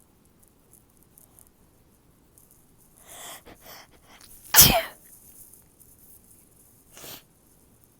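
A woman sneezes once, loudly, with a moan that falls in pitch, after a few short gasping in-breaths. A short breath follows near the end.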